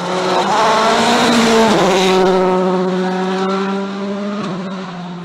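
Volkswagen Polo R WRC rally car's 1.6-litre turbocharged four-cylinder engine at high revs as the car passes close. The pitch climbs, drops sharply about one and a half seconds in as it changes gear, holds steady, then falls again near the end.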